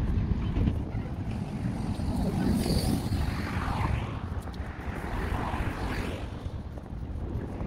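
Steady low rumble of wind buffeting the microphone, mixed with city street and traffic noise.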